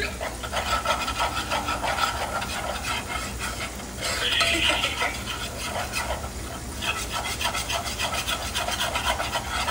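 A spoon stirring and scraping around a saucepan of homemade gravy in quick repeated strokes. Beneath it is a faint sizzle from a frying pan.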